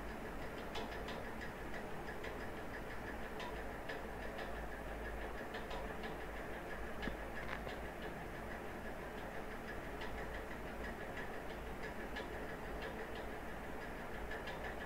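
Scattered, irregular clicks from a computer keyboard and mouse over a steady background hiss and low hum.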